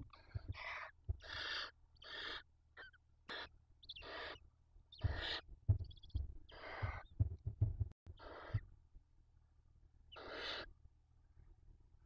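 Barn owl chicks' hissing begging calls: a string of short, raspy hisses, coming about every half second at first and spacing out over the last few seconds, with soft low thumps from the birds shifting in the nest.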